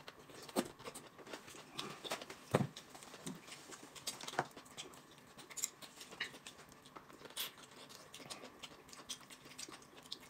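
Small table sounds of peeling and eating fresh bamboo shoots: scattered quiet clicks, crackles and rustles of husk being torn and chewed, with a soft thump about two and a half seconds in.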